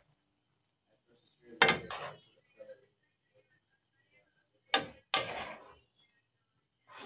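Metal spoon stirring beef and vegetables in a coated frying pan: a sharp knock and scrape about one and a half seconds in, then another knock and a longer scrape around five seconds, with only faint ticks between.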